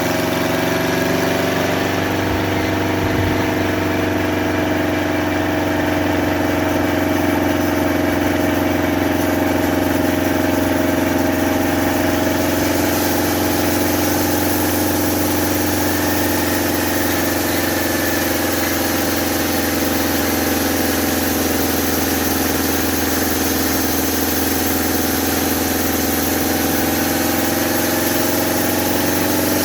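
Homemade sawmill with a 2-inch blade running steadily, its motor holding a constant, even drone with only a slight waver in pitch. It is running slower than normal.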